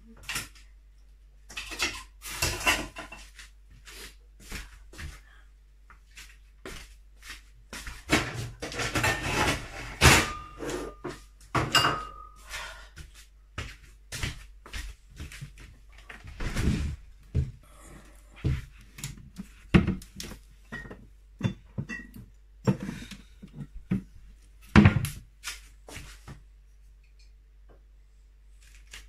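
Irregular knocks, clatter and rustling of things being handled in a kitchen, busiest in the first half, with the loudest knocks about ten seconds in and again near twenty-five seconds.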